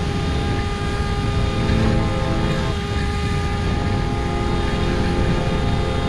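Electric brushless motor (Xing-E 2208, 1800kv) and propeller of a RiteWing Nano Drak FPV flying wing running in flight at steady throttle, a steady whine, over heavy wind rumble on the onboard camera's microphone.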